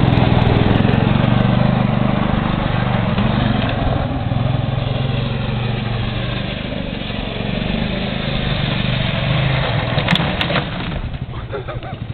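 Polaris XC 120 youth snowmobile's small two-stroke engine running steadily, its note dipping about halfway through as the sled moves off, then easing off near the end. A few sharp clicks sound about ten seconds in.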